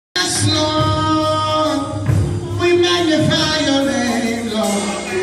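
Music with singing begins abruptly out of silence and carries on steadily.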